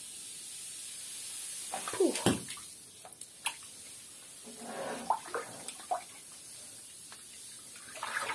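Water running into a bathtub, with a few splashes about two and three seconds in.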